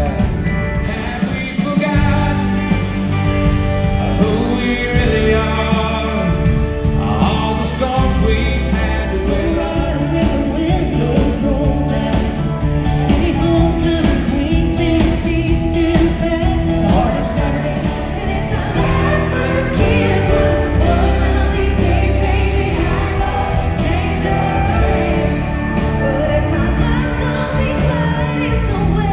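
Country music played live on stage, with a lead vocal and harmony singing over the band.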